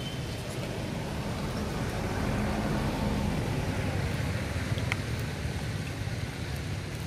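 Steady low rumbling outdoor background noise, with a faint hum that comes in about a second in and fades a couple of seconds later, and one small click near the end.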